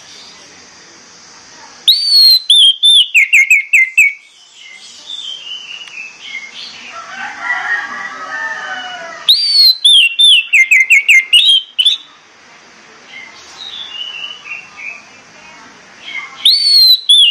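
Orange-headed thrush singing: a loud whistled phrase of quick notes stepping downward, given three times about seven seconds apart, with softer whistled and warbling phrases in between.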